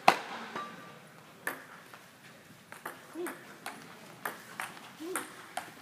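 Table tennis rally: the ball ticking sharply off the paddles and bouncing on the table, roughly one tick every half second, the loudest right at the start.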